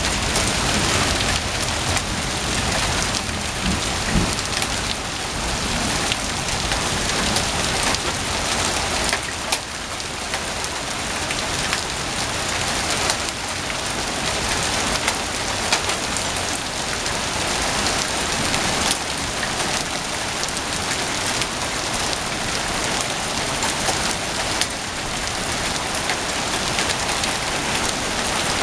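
Hailstorm: small hailstones and rain pelting a lawn and a concrete sidewalk, a dense steady hiss full of small sharp ticks.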